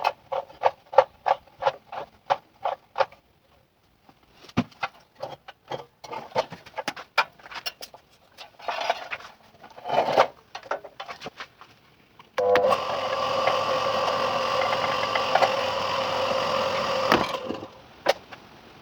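Workshop sounds: a quick series of even knocks, about three a second, then scattered clicks and knocks, then a small electric motor tool running steadily for about five seconds before it stops.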